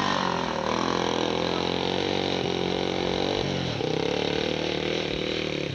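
Small engines of three-wheeled ATVs running and revving as they churn through deep mud. The engine note dips and picks up again about halfway through.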